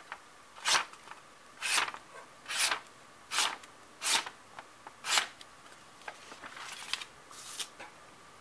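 Paper slicing: the S35VN steel blade of a Zero Tolerance 0452Ti folding knife cutting strips off a sheet of paper, about eight quick cuts roughly a second apart, the last two fainter.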